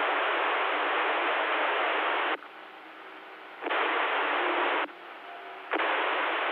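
CB radio receiver hiss from the band static, which cuts out abruptly twice for about a second at a time, leaving faint steady tones underneath.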